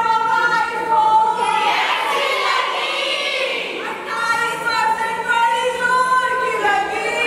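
A group of young women singing together in unison, in long held notes; about two seconds in the tune gives way for a couple of seconds to a rougher, shouted stretch before the held singing resumes.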